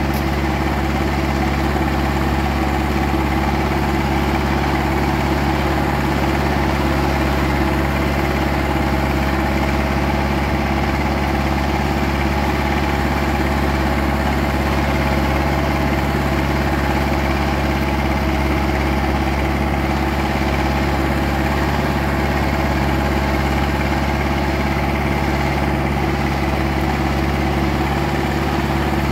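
Zetor 7340 Turbo tractor's turbo diesel engine running at a steady speed, with no change in pitch or load.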